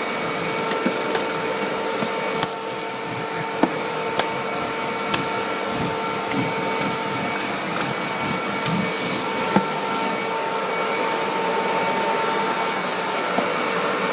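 Hoover WindTunnel bagged upright vacuum cleaner running steadily, its motor giving a constant whine over the rush of airflow, with a few sharp ticks scattered through.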